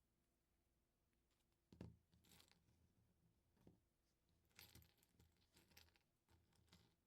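Faint handling of small plastic LEGO pieces: a sharp click a little under two seconds in, then scattered clicks and a stretch of rustling and clattering as pieces are sorted and fitted.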